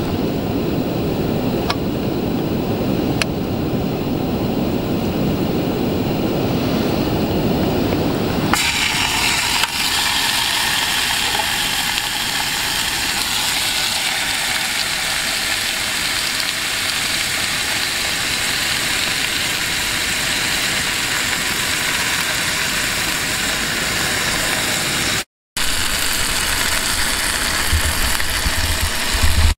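A low, steady rumble, then bacon sizzling in an aluminium mess tin on a gas camping stove: the frying hiss starts suddenly about eight seconds in and carries on evenly.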